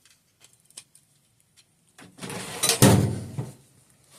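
Metal hex keys being handled: a few light clicks, then a louder rattling clatter with a low rumble about two seconds in that lasts about a second and a half.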